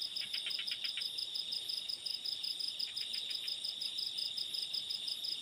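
Night insects trilling steadily: a high, even pulsing chorus. Two short runs of quicker faint ticks come from another caller, one near the start and one about three seconds in.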